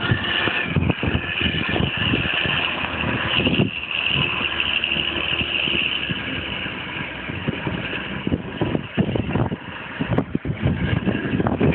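Renault 370 tractor unit's diesel engine running steadily while its tipper trailer is raised to dump the load, with a steady high whine over the engine that fades after about eight seconds. Uneven rumbling near the end.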